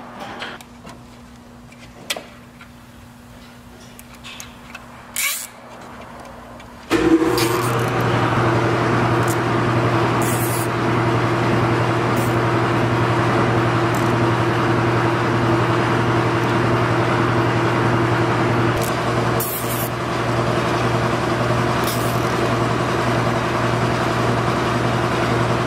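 A motor or engine starts suddenly about seven seconds in and runs steadily with an even hum until just before the end. Before it starts there are a few small clicks and rustles of hands working.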